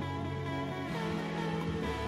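Instrumental background music with sustained notes; the chord changes about a second in.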